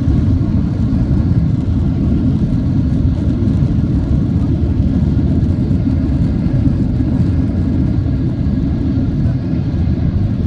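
Steady low rumble of a Boeing 767-300ER's engines and rushing air, heard inside the passenger cabin as the jet lands, with a faint steady whine above it.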